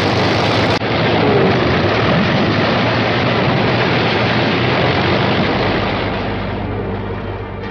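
Jet aircraft engines running: a loud, even roar that holds steady, then fades over the last couple of seconds.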